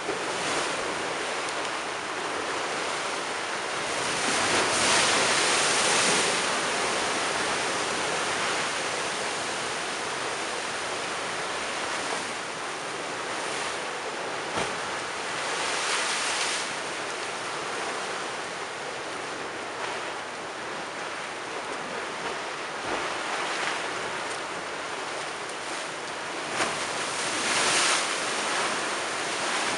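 Storm-surge waves surging and breaking against a stone seawall and concrete steps: a continuous wash of rough surf with louder crashes about five seconds in, around the middle, and near the end.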